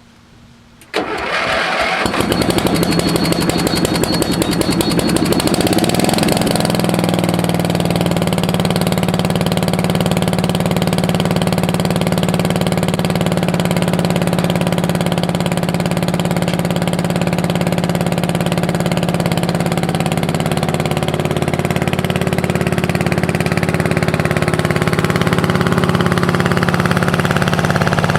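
Craftsman lawn tractor's 12 horsepower engine starting up about a second in, running unevenly for a few seconds, then settling into a steady run.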